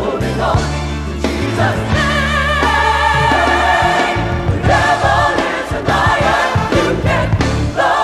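Gospel choir singing with a backing band, voices holding a long chord with vibrato over sustained bass notes, then moving into shorter sung phrases about halfway through.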